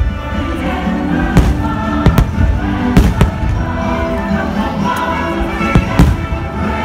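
Aerial fireworks shells bursting, about half a dozen sharp booms spread over a few seconds, over a steady fireworks-show music soundtrack.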